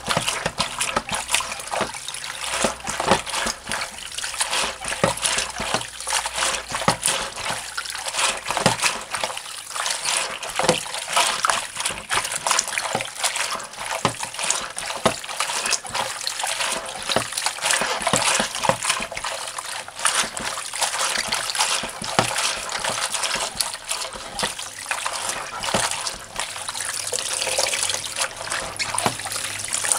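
Hands washing callaloo leaves in a basin of water: steady splashing and swishing as the bunch is scrubbed and squeezed, with many small sharp splashes.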